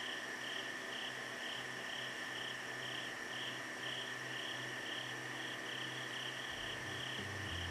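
An evening chorus of crickets and other insects: a steady high trill with a pulsing chirp over it, about two to three chirps a second. A low rumble comes in near the end.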